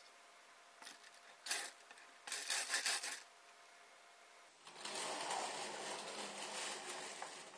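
Steel Lazy Susan turntable bearing between two wooden boards, rattling and clicking in short bursts as it is handled and turned. About two-thirds of the way in this gives way to a steady rushing noise for nearly three seconds.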